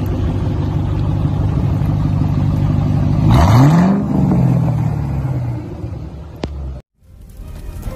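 Ford Mustang GT's V8 idling through its exhaust, blipped once about three seconds in: the revs climb quickly, then fall back to idle over a couple of seconds. The sound cuts off abruptly about a second before the end.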